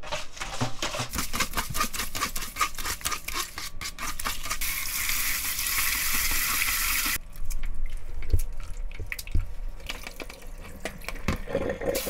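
Raw oysters rubbed by hand with coarse salt in a plastic colander, a rapid wet crackling and squelching. About four seconds in, tap water runs into the bowl for about three seconds, then the oysters are swished in the water with a few knocks against the bowl.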